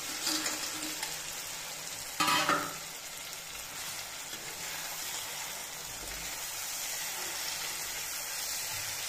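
Small fish frying in a wok of hot oil and spiced tomato masala, a steady sizzle as they go into the pan and are stirred with a metal spoon. There is a brief louder burst of sizzling and clatter about two seconds in.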